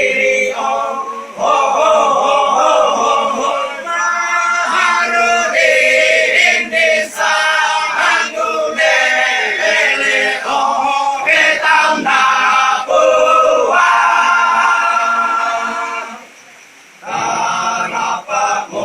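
A choir singing a song in the Torajan badong funeral-chant style, several voices together in sustained sung phrases, with a brief break about three-quarters of the way through.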